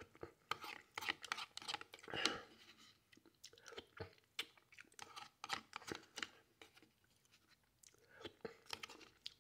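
Faint close-up chewing and mouth sounds of someone eating soft canned Chef Boyardee lasagna, with irregular small clicks and smacks.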